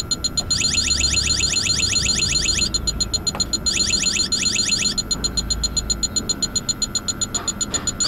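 Electronic refrigerant leak detector alarming: fast electronic beeping, about ten beeps a second, with stretches of rising chirps coming and going. It is picking up refrigerant at the evaporator drain tube, the sign of a leaking evaporator core.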